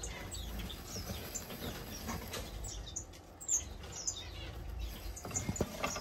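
Small aviary finches chirping: short, high calls scattered throughout, a few louder ones about three and a half seconds in and near the end, over a low steady rumble.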